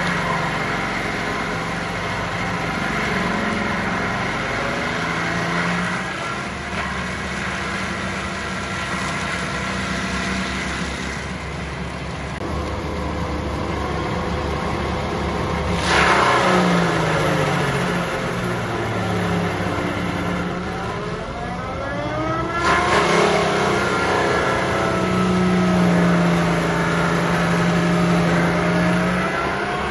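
Tractor diesel engine driving a forestry mulcher, its rotor grinding roots and soil. Twice, about halfway through and again some seconds later, a loud burst comes as the rotor bites in, and the engine's pitch sags under the load and then climbs back.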